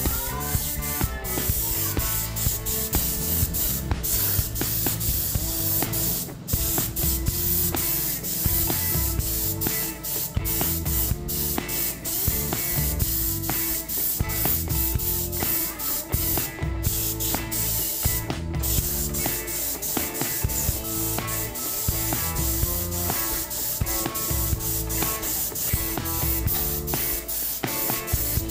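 Compressed-air paint spray gun hissing steadily as paint is sprayed, broken off briefly a few times. Background music with a beat plays underneath.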